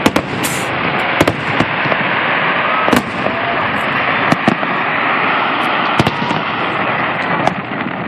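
Aerial fireworks shells bursting in an irregular string of sharp bangs over a continuous dense rushing noise.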